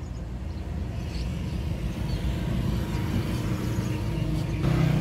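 Steady low rumble of a running motor vehicle engine, which grows louder with a stronger engine note near the end.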